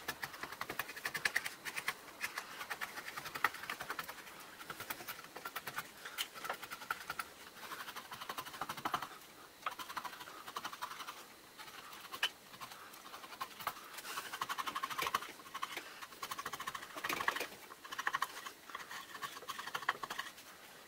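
A hand chisel paring and shaving wood off the corners of a wooden lure blank, chamfering it. It makes a rapid run of fine scratchy cuts, stroke after stroke, with short pauses between runs.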